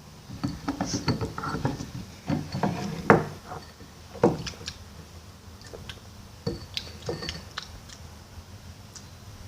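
Irregular knocks, taps and clicks of objects being handled, thickest in the first few seconds, loudest about three seconds in and again just after four seconds.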